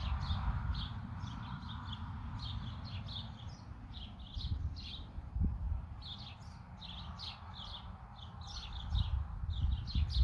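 Small birds chirping: many short, high chirps repeating throughout. Underneath is a low rumble that swells near the start and again at the very end.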